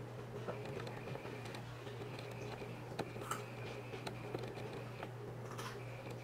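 Quiet room tone: a steady low hum with a few faint scattered clicks and ticks.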